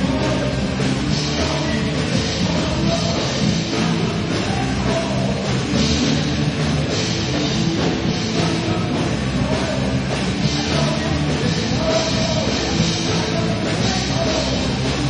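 Loud, steady rock music: a rock band with drum kit playing in a heavy-metal style.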